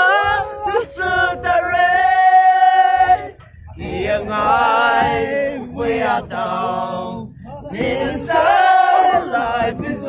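A group of men chanting or singing together loudly in long held notes, in phrases broken by two short pauses.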